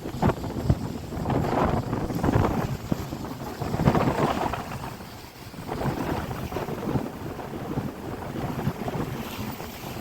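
Wind buffeting the microphone over the sea, with surf washing in swells that rise and ease every couple of seconds.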